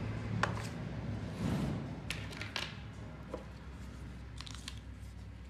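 Handling noise: a cardboard box tray being moved and a plastic phone charger picked up off a wooden table, giving a scatter of light clicks and taps over a steady low hum.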